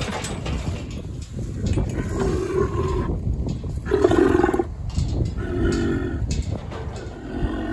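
Brahman cattle mooing: four short calls, a second or two apart.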